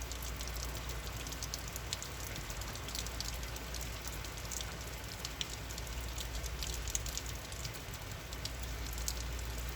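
Steady rain falling, with many small drops ticking scattered over a steady hiss.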